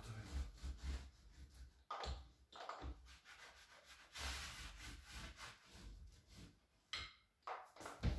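Irregular rubbing and scraping as a sheet of flexible stone veneer is pressed and smoothed by hand onto a glue-coated surface, with light handling bumps and a longer scrape about four seconds in.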